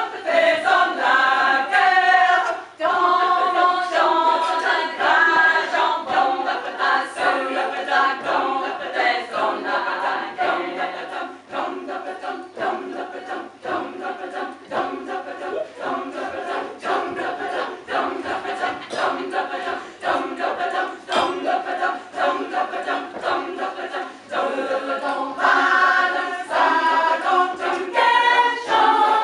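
Women's choir singing a French drinking song, unaccompanied. The singing eases off in the middle and swells louder and fuller again near the end.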